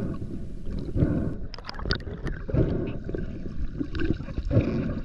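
Water sloshing and gurgling around a diver's camera in the water, a low uneven rushing with scattered small clicks and knocks.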